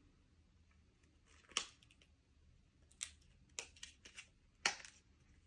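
Handling of laptop memory modules and small plastic parts: five or six sharp clicks and taps, spaced irregularly, the loudest about three-quarters of the way through.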